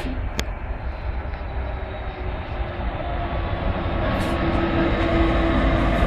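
Class 66 diesel locomotive's EMD two-stroke V12 engine working as it pulls away and passes close by at low speed. A steady low rumble with a droning engine note that grows louder as the locomotive draws level, and one brief click about half a second in.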